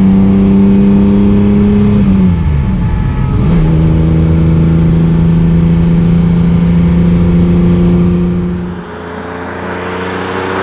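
A 1969 Ferrari 365 GT 2+2's 4.4-litre V12, heard from inside the cabin, pulls steadily. About two seconds in, the revs drop and pick up again a little lower, as in an upshift, and then it runs on steady. Near the end the sound turns quieter and becomes the car approaching from outside, with a rising rush of engine and tyre noise.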